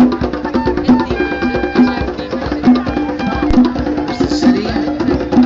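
A street musician playing percussive music with a steady beat: struck, pitched notes repeating evenly over a low pulse.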